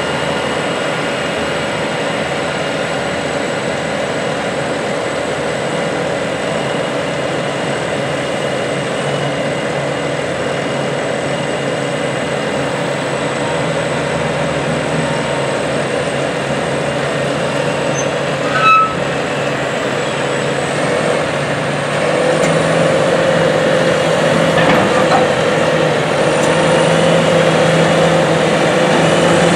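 McCormick X8.760 tractor's engine running steadily while the Penta silage trailer's hydraulic dump body tips up to unload corn silage. There is a short high squeak just before 19 seconds in, and about 22 seconds in the engine note steps up and runs louder.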